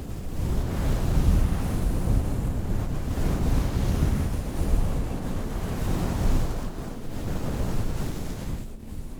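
Rushing, rumbling noise like wind buffeting the microphone, heaviest in the low end, swelling and easing in waves.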